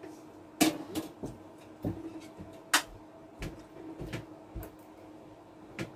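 Scattered clicks and knocks of dishes and a spoon being handled while rice is served, about nine in all, some with a dull thud, over a steady low hum.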